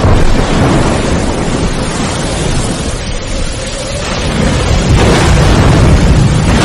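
Strong storm wind gusting through trees and buffeting the microphone: a loud, continuous rush with a heavy low rumble, easing slightly then swelling again about five seconds in.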